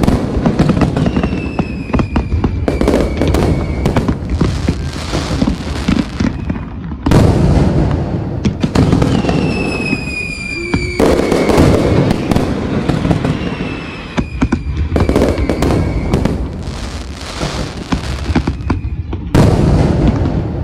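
Aerial fireworks display: shells bursting in quick, overlapping bangs and crackles over a deep rumble, with sudden loud barrages about 7, 11 and 19 seconds in. A thin, high, falling whistle recurs every few seconds.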